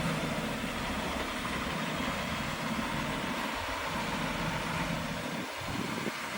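Diesel engine of heavy earthmoving machinery, a bulldozer or dump truck, running steadily.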